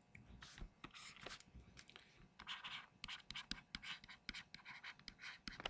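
Faint scratching and tapping of a stylus writing on a pen tablet: an irregular run of short strokes and clicks.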